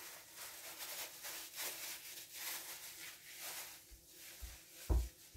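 Soft rubbing or scraping strokes repeated about twice a second, then a few dull knocks, the loudest about five seconds in.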